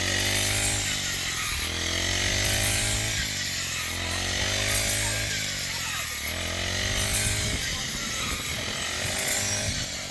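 Small engine running, its pitch dipping and recovering about every two seconds, with a rushing noise each cycle, as if the engine is repeatedly taking load.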